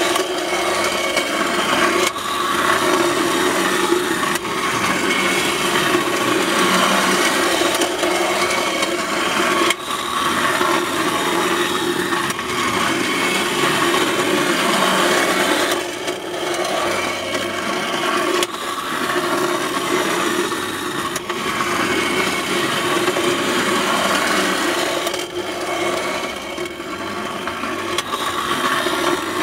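Clockwork mechanism of a vintage tin-plate wind-up toy circuit running steadily, its gears whirring and the toy train and car rattling over the tin track, with occasional clicks.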